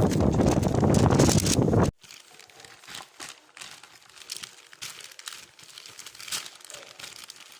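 A loud low rumble for about two seconds that cuts off abruptly, followed by plastic packaging crinkling and rustling as it is handled.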